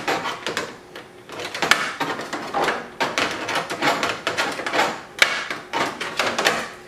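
Hand ratchet clicking in repeated short runs of strokes as a screw is driven in.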